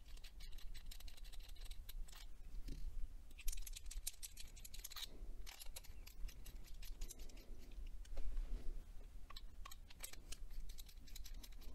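Small clicks and scratchy ticks of acrylic fountain-pen parts being handled, as a nib section is unscrewed from one barrel and threaded into another, over a steady low hum.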